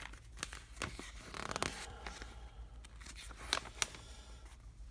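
Pages of a paper instruction booklet being handled and turned: a few short rustles and swishes of paper.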